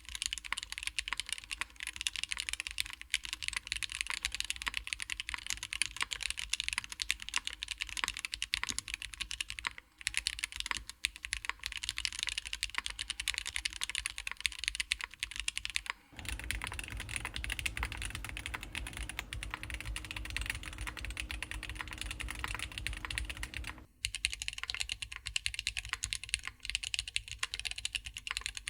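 Fast, continuous typing on a Neson N6 mechanical keyboard with TTC switches, keys clacking densely. The sound changes character about a third of the way through to a deeper, fuller clack, then switches back near the end, with a brief pause in typing early on.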